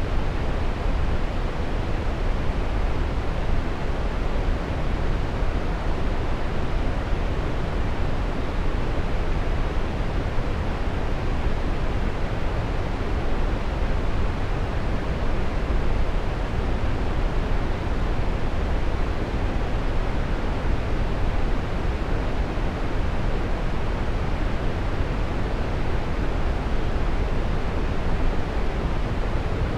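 Waterfall: water falling and splashing in a steady, unbroken rush, heaviest in the low range.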